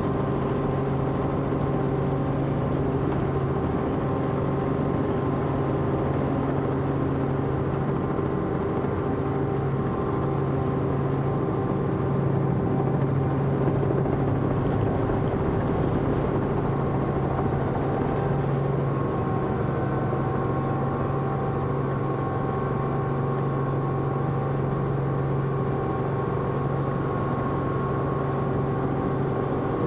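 Helicopter running steadily: a constant drone of rotor and engine with a deep, even hum that holds the same level throughout.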